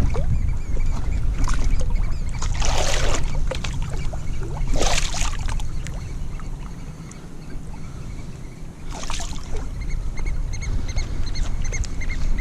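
Wind rumbling on the microphone on a surf beach, with waves washing in three times, each a hissing surge of a second or two.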